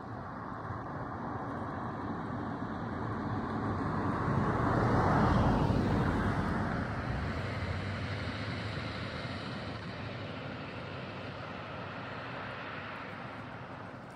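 A road vehicle passing by. Its noise swells to a peak about five seconds in, drops in pitch as it goes past, then fades slowly away.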